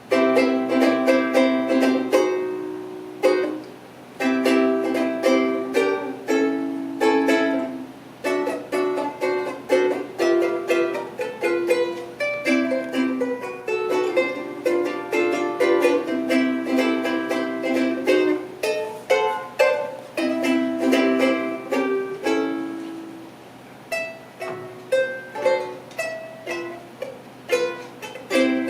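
A 1920s-vintage acoustic ukulele played as a solo, with quick strummed chords and short breaks between phrases.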